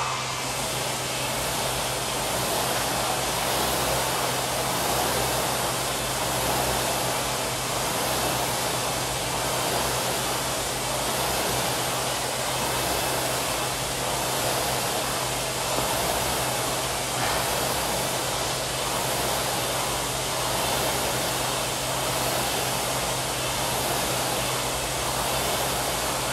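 Air rowing machine's flywheel fan whooshing steadily under continuous rowing, swelling and easing in a slow rhythm with the strokes.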